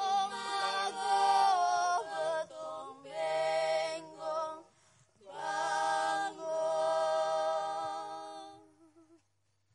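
Unaccompanied singing in long held notes, in phrases that break off briefly about five seconds in and fade away near the end.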